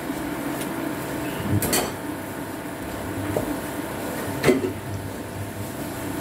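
Steady kitchen hum with two short sharp knocks, the louder one about four and a half seconds in.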